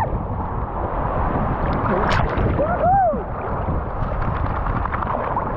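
Steady rush of wind on the microphone and moving water, with a short rising-then-falling whine about three seconds in.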